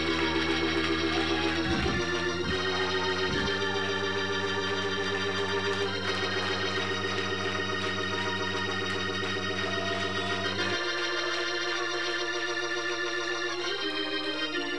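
Organ playing held chords with a wavering tremolo on the notes; the bass notes drop out about eleven seconds in.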